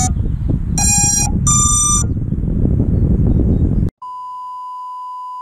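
Wind rumbling on the microphone with two short electronic beeps, the second higher than the first. About four seconds in, the sound cuts out and a steady single-pitch test-card tone begins.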